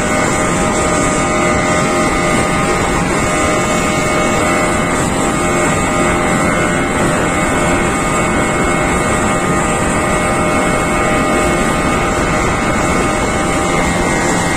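Yamaha 40 hp outboard motor driving a speedboat at steady speed, heard from aboard: a steady engine drone with a whine that holds one pitch, over the rush of water and wind buffeting the microphone.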